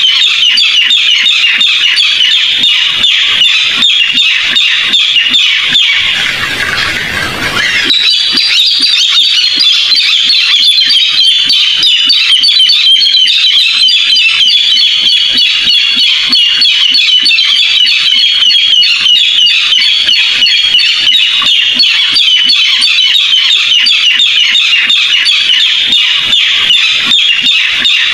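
Barred rail (tikling) calling: a loud, continuous run of rapid, harsh repeated notes, played as a call recording used to lure the bird into a trap. About six seconds in, a short stretch of rushing noise blurs the calls for a second or two.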